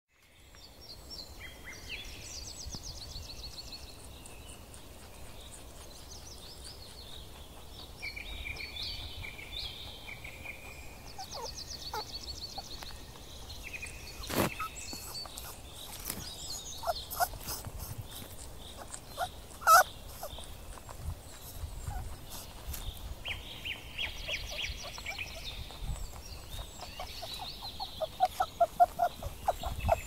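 Outdoor birdsong: several birds singing overlapping high-pitched trills and chirps. A couple of sharp clicks come around the middle, and near the end a lower, fast-repeating series of calls starts up.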